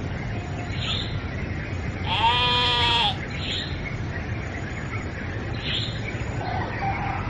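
A goat bleats once, a wavering call of about a second, about two seconds in. Short bird chirps come every couple of seconds over steady low background noise.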